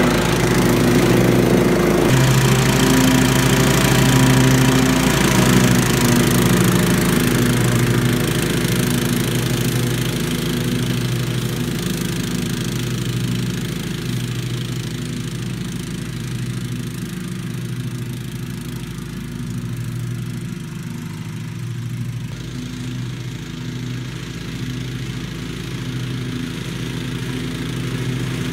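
Walk-behind lawn mower (a 1996 Giant Mow running on newly fitted Kevlar deck belts) running steadily while mowing. It grows fainter over the middle of the stretch as it moves away, and a little louder again near the end as it comes back.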